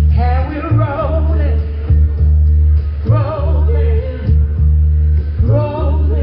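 Soul music: a singer's voice with vibrato over a band with a heavy bass line, sung in phrases with short gaps between them.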